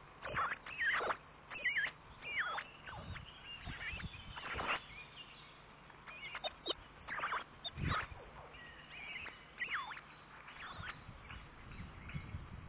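Ospreys calling: short whistled chirps, many of them sliding down in pitch, repeated irregularly about once a second over a faint low hum.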